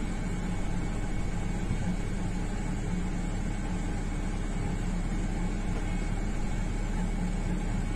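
Steady mechanical hum and fan-like whir of running equipment, with a constant low electrical hum and a faint steady high whine; no blasts or impacts are heard.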